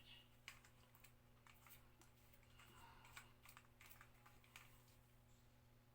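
Near silence with faint scattered clicks and taps of small plastic tripod parts being handled and fitted together, over a faint steady hum.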